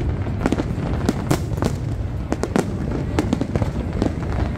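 Fireworks display: aerial shells bursting in quick succession, several sharp bangs a second over a continuous low rumble of explosions.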